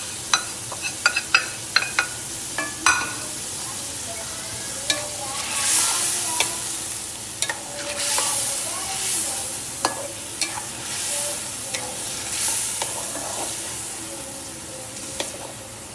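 Chicken pieces frying in oil in an aluminium pot, sizzling as they are stirred with a plastic spatula. A quick run of sharp taps against the pot comes in the first few seconds, then the sizzle rises and falls with each stir.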